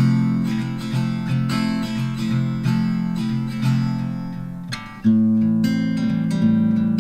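Background music: acoustic guitar strumming chords, with a brief dip just before a loud new chord about five seconds in.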